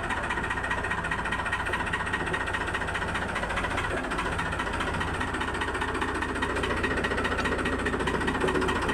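Farmtrac tractor's diesel engine running steadily at low revs with an even, rapid beat, growing slightly louder in the second half as the tractor is backed up for hitching.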